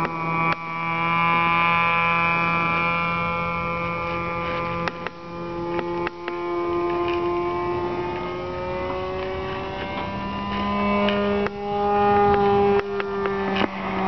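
The engine and propeller of a radio-controlled P-51 Mustang model in flight, running at high throttle with a steady buzzing drone. The pitch drifts slowly as the plane flies around and steps up about ten seconds in.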